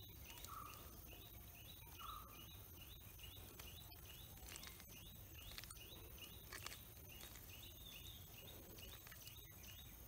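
Near silence: faint outdoor ambience with short high chirps repeating about twice a second, and two brief higher-pitched notes in the first couple of seconds.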